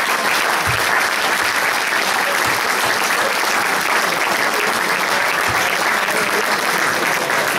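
An audience applauding: many hands clapping together in a steady, dense run.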